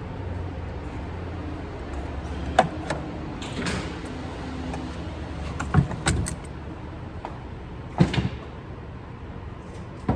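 A handful of sharp metallic clanks and knocks from hand tools and battery hardware while a car battery is being removed and replaced, over a steady low hum.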